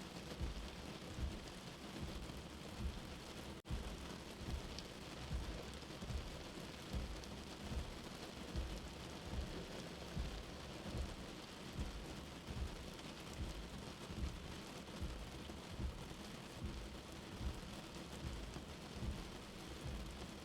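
Steady rain with a soft, low heartbeat thump mixed in, about one beat a second. The sound cuts out for an instant about three and a half seconds in.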